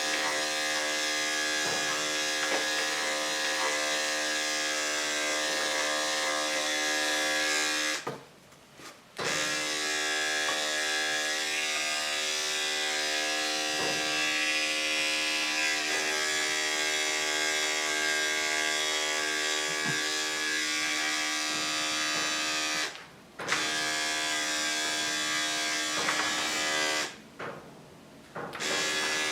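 Electric dog-grooming clippers running with a steady buzzing hum, stopping briefly three times: for about a second a third of the way in, very briefly later, and for a second and a half near the end.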